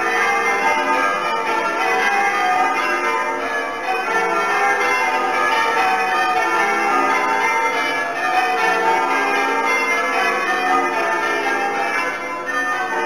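Church tower bells ringing changes, one bell after another in a continuous, even sequence.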